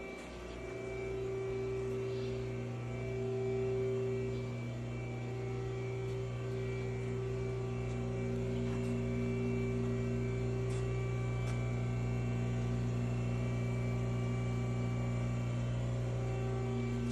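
Steady electrical hum of a powered-up Haas ST-20 CNC lathe standing idle, its motors and fans running. A low drone sits under a couple of higher steady tones that drop in and out.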